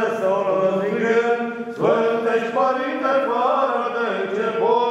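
Eastern Orthodox funeral chant: voices chanting a slow, melismatic line without pause, with a new phrase starting about two seconds in.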